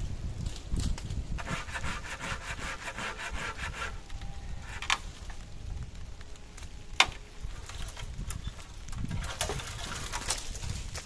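Folding hand saw cutting through a sapling trunk: a run of quick rasping strokes, then two sharp cracks in the middle, and more sawing near the end.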